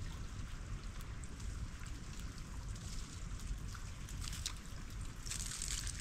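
Meltwater trickling and dripping from melting ice: many small scattered drips and ticks, with a brief louder spell of trickling about five seconds in, over a steady low rumble.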